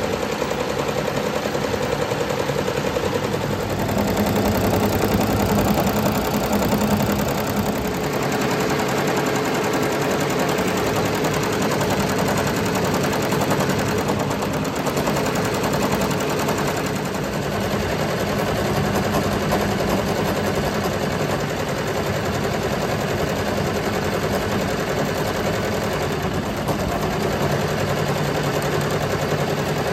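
SWF multi-needle commercial embroidery machine stitching at speed: a rapid, steady chatter of needle strokes over the hum of its drive.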